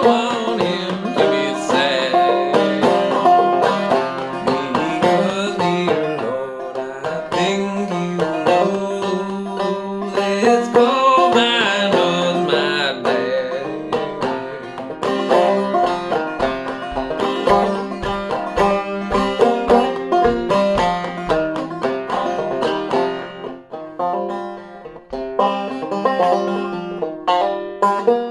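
Five-string banjo played clawhammer style in open fCFGC tuning: a steady, driving run of plucked notes and strums, with a briefly quieter passage a little past the middle.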